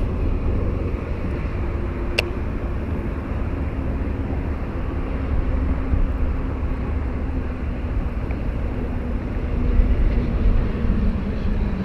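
Steady low rumble with the faint drone of a distant engine that slowly falls in pitch, and a single sharp click about two seconds in.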